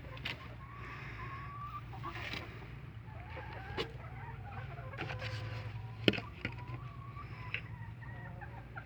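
Chickens clucking with short, wavering calls, over a steady low hum, with a few sharp clicks, the loudest about six seconds in.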